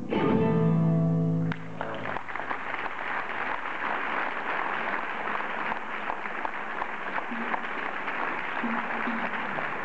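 The closing chord of live flamenco music rings for about a second and a half and stops abruptly. The audience then applauds steadily.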